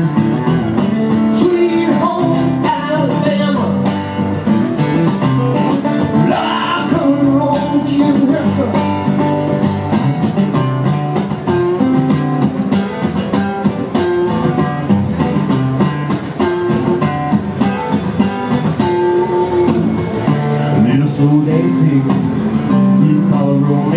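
Live band music: acoustic and electric guitars playing a country-rock passage with a steady rhythm.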